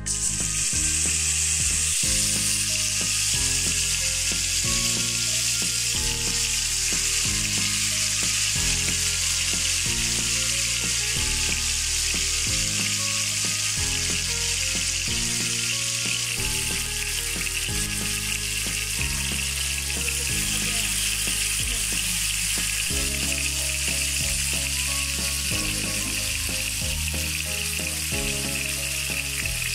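Hot oil sizzling steadily in a frying pan as marinated chicken pieces shallow-fry; the sizzle starts suddenly as the pieces go into the oil. Background music plays underneath.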